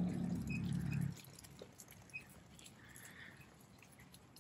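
A steady hiss with a low hum that cuts off abruptly about a second in, then a few faint, short, high chirps of small birds, spaced a second or so apart.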